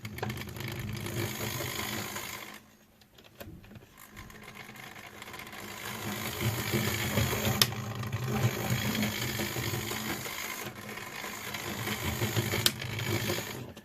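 Old OO gauge model locomotive's small electric motor running on the track, a steady whir with gear and wheel rattle and the odd click. It stops briefly about two and a half seconds in, then starts again and builds up to a steady run; the motor and gear are freshly oiled and the loco is running again after being a non-runner.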